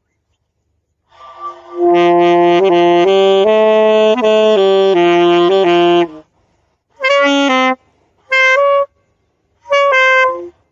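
A fingered reed wind instrument played by a beginner: a run of held stepwise notes for about four seconds, then three short separate blows. The player says the high notes keep coming out shrill.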